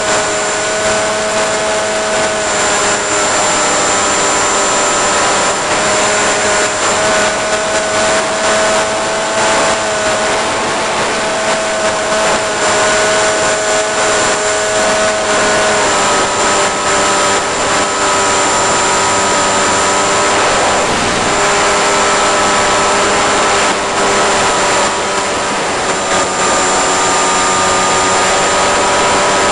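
Onboard electric motor and propeller of a 1.5 m Eagle Wing FPV model aircraft in flight: a steady whine whose pitch drifts and steps up about halfway through, over a heavy rush of air noise, with a thin high-pitched tone above it.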